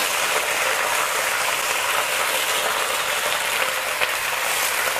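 Torn cabbage leaves sizzling hard in very hot oil in a wok, just tipped in over a high flame: a dense, steady hiss. The cabbage is left unstirred so its surface sears against the hot pan.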